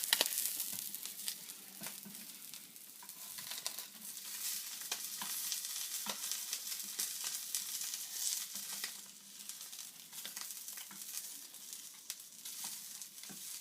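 Scallop roe frying in a pan: a steady high sizzle with scattered sharp pops and crackles, and a few knocks of the roe being turned over.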